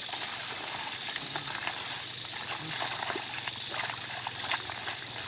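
Small splashes and sloshing as hands grope through shallow muddy water and floating water plants, feeling for fish. Scattered short clicks and splatters over a steady background.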